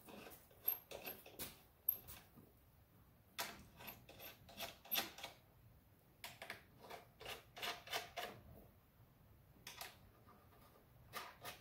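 Scattered light metallic clicks and clinks of small nuts and washers being handled and threaded by hand onto bolts set in a wooden board.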